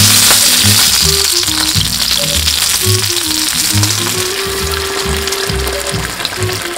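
Hot oil sizzling as coated pieces pan-fry, loudest at the start and slowly easing off. Soft background music plays underneath.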